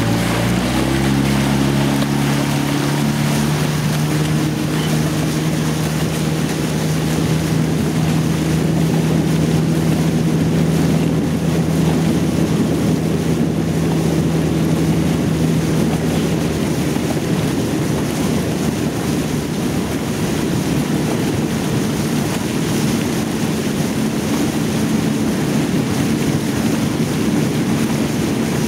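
Motorboat engine running steadily, rising in pitch in the first second and then holding, with water rushing and wind noise on the microphone.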